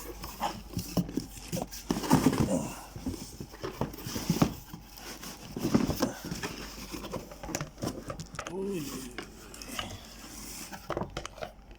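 A cardboard shoe box and its packaging being handled and opened by hand: irregular rustling, scraping and tapping, with a short exclamation about three-quarters of the way in.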